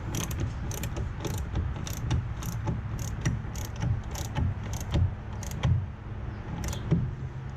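Ratchet wrench clicking as a 13 mm engine-mount bolt is run down snug, the pawl ticking irregularly about twice a second with each back-swing.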